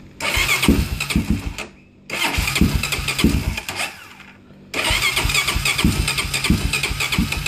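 Honda Sportrax 400EX quad's electric starter cranking its single-cylinder engine in three bursts with short pauses between, the engine turning over without catching. The freshly revived AGM battery is cranking the engine.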